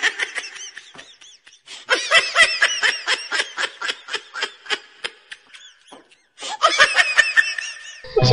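Laughter in rapid ha-ha pulses, coming in three bouts with short pauses between them.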